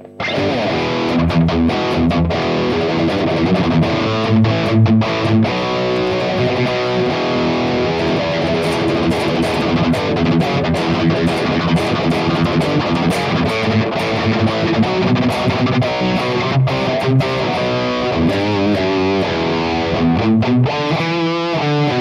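Electric guitar played through a Hotone Ampero 2 Stage modelling unit with its stereo chorus switched off: a distorted high-gain rhythm riff, with faster picked passages near the end.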